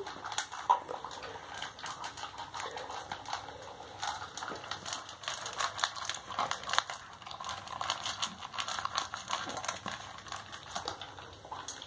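Basset hound eating dry kibble from a stainless steel bowl: a continual run of irregular crunches and clicks as the pieces are chewed and knocked against the metal.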